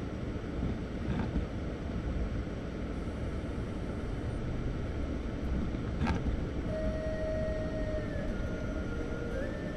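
Steady low rumble of a car driving on a snowy road, heard from inside the cabin, with a sharp click about six seconds in. Near the end a faint held tone begins that steps down and up between a few pitches.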